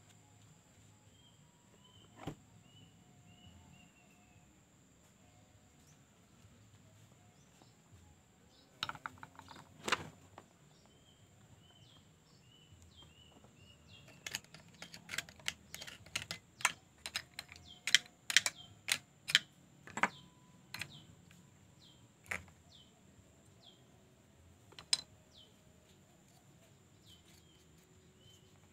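Sharp, irregular clicks and knocks of hand tools and small parts being handled during chainsaw repair work, with a quick cluster of them in the middle. A bird chirps faintly in the background with short, repeated falling notes.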